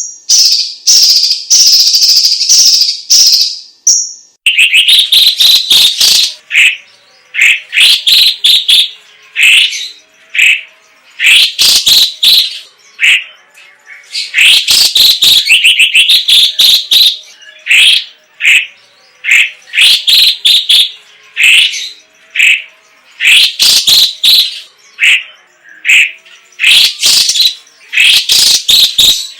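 Cucak ijo cina (cucak cungkok), a leafbird, singing in full voice. A high, rapid rattling chatter runs for about the first four seconds, then comes a long run of short, loud, repeated song phrases, about one every second.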